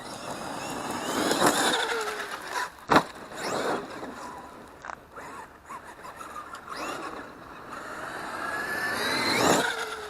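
Traxxas X-Maxx RC monster truck's electric motor whining as it revs up and down, loudest about a second and a half in and again near the end, with one sharp knock about three seconds in.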